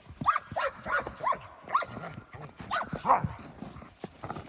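A dog giving a quick run of short, high barks, about seven in three seconds, then falling quiet near the end.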